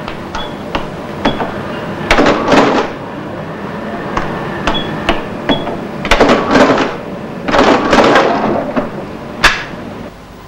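Electronic cash register being rung up: short high key beeps, then three bursts of mechanical clattering from the register, and a single sharp click near the end.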